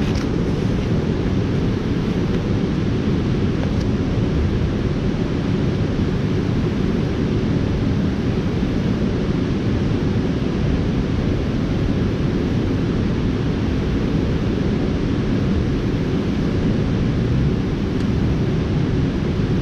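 Steady rushing of river water spilling over a low-head dam, an even noise heaviest in the low end that holds the same level throughout.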